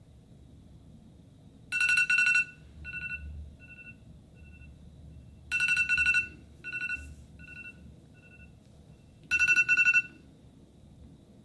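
iPhone alarm ringing: three bursts of rapid high beeps, about four seconds apart, each followed by fading echoes.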